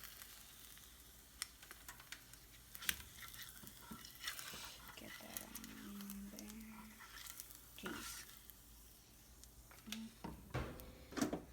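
Scattered faint clinks and scrapes of a spatula and dishes, over a faint sizzle of bluegill frying in the pan.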